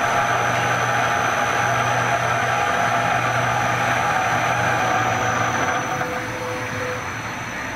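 CNC milling machine's spindle motor running steadily with a mechanical hum and whine while the tool-change command raises the quill. The sound gets quieter near the end as the spindle is stopped for the tool change.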